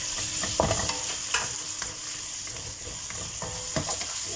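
Diced raw chicken sizzling in hot oil with sautéed onion and garlic in a granite-coated nonstick pan, stirred with a wooden spatula that knocks and scrapes against the pan several times, loudest about half a second in.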